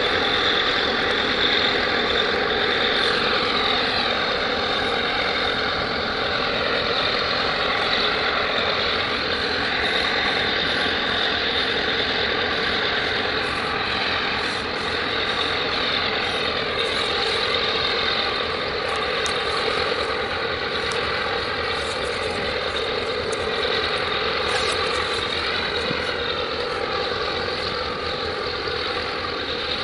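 Steady drone of heavy diesel engine machinery, its tone slowly shifting.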